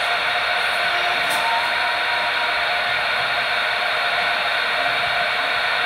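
Steady static hiss from a CB radio's speaker while no station is transmitting on the channel, as the operator waits for an answer to his call.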